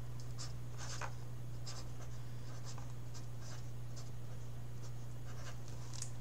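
A small marker writing on a sticker label: short, faint strokes of the tip, unevenly spaced, over a steady low electrical hum.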